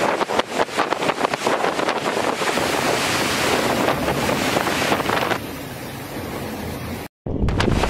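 Storm wind gusting hard against the microphone in rapid surges over a steady rush of heavy rain. It eases about five seconds in, drops out for an instant just after seven seconds, then returns as a louder, deeper rumble of wind on the microphone.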